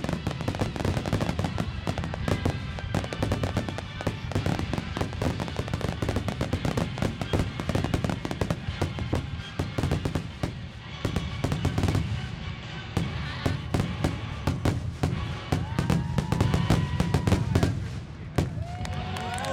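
Aerial fireworks going off in a dense, rapid barrage of bangs and crackling, with barely a gap between reports.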